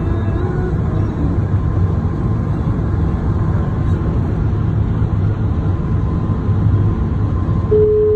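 Steady road and engine noise heard inside a car cabin at highway speed. Near the end comes a single steady beep about a second long.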